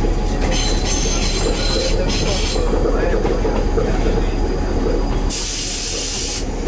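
SNCF X 2200-series diesel railcar running, a steady rumble of engine and wheels on the rails. About five seconds in comes a loud hiss lasting about a second.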